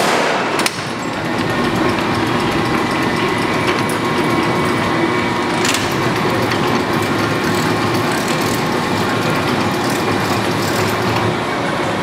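1973 Lodge & Shipley 2516 hollow-spindle lathe running under power: a steady mechanical din carrying faint whining tones, with a sharp click just under a second in and another near the middle.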